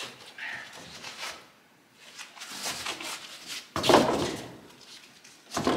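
Heavy rubber stable mat being shifted and dropped into place, scraping and flapping, with a loud thud about four seconds in and another near the end.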